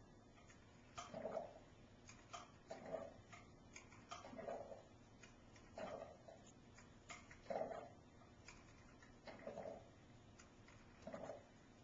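Faint sounds from a phone's small speaker: a click and a short mid-pitched sound, repeated about every one and a half seconds.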